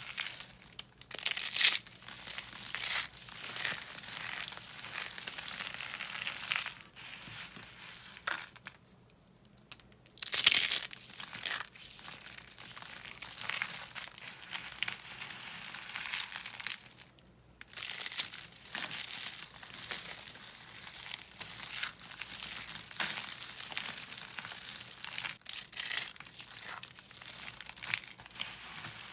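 Dry soap being crushed and crumbled by hand: a dense run of crisp crackling crunches, with two short lulls and the loudest crunch about ten seconds in.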